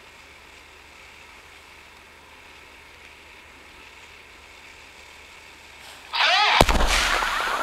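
Pyrotechnic explosion of an aircraft on a film set, about six seconds in: a sudden loud blast with a deep boom. The rush of the blast follows, with a rapidly repeating falling whine.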